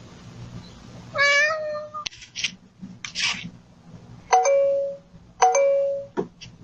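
A domestic cat meowing: one wavering meow about a second in, then two short, matching flat-pitched meows near the end, with a few short noisy sounds in between.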